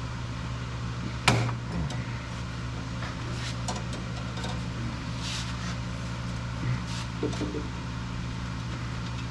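A steady low mechanical hum, with a single sharp metallic knock about a second in and a few lighter clanks and a brief hiss afterwards, the sounds of work going on around a refrigerator being stripped for scrap.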